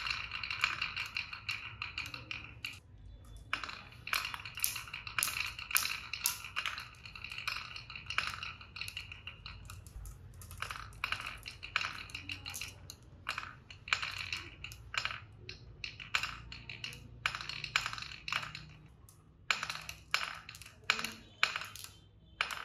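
Marbles rolling and clattering down a HABA marble run: a steady rolling ring with a rapid run of sharp clicks as they strike the track pieces and each other, thinning to more scattered clicks in the second half.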